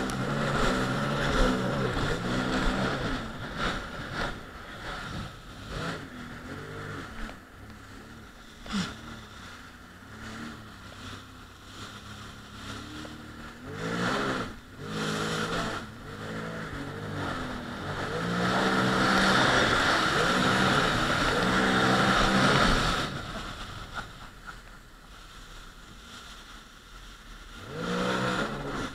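Jet ski engines revving up and down over choppy water, the engine note rising and falling again and again, with splashing water and wind on the microphone. The loudest part is a long steady run at high throughput about two-thirds of the way through.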